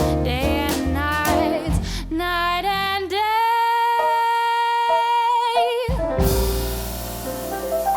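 Jazz quartet ending a song: a female singer sings the last phrase over piano, double bass and drums, then holds a long final note that gains vibrato before it ends. About six seconds in, the band hits the closing chord with a cymbal crash, and the chord rings out and fades.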